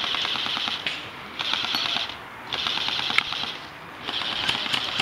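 Airsoft electric gun (AEG) firing on full auto in four short bursts: a whirring gearbox with rapid clicking shots, separated by brief pauses.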